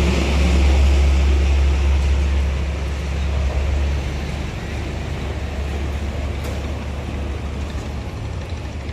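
Low traffic rumble of a vehicle crossing the bridge overhead, loudest for the first four seconds and then easing off.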